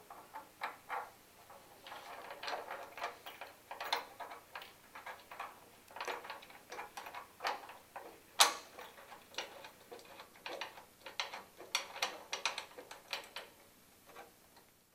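Irregular light clicks and taps of metal hardware as the console bolts and washers are fitted and tightened into the folding treadmill's mast, a few clicks a second with one sharper knock about eight seconds in.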